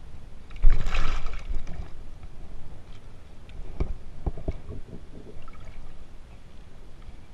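Water splashing as a pike is landed and handled at the surface, with a loud splash about a second in, then several sharp knocks.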